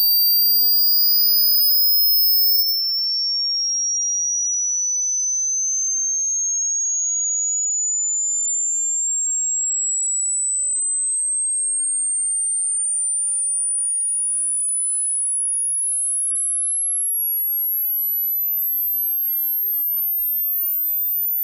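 Electronic sine-wave test tone sweeping slowly and steadily upward in pitch, from a high whistle to a piercing, very high pitch near the top of hearing. A second, even higher tone cuts out about three seconds in.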